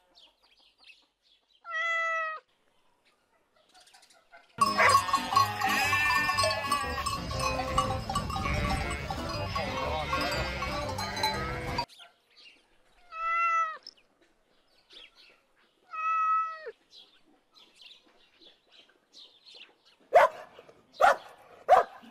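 Domestic cat meowing: one drawn-out meow about two seconds in, then a loud stretch of several seconds of overlapping cries and noise, then two more meows a few seconds apart. Short sharp dog barks start near the end.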